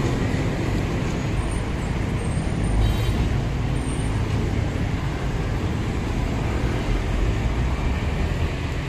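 Steady road-traffic noise: motor vehicles running, with a low rumble.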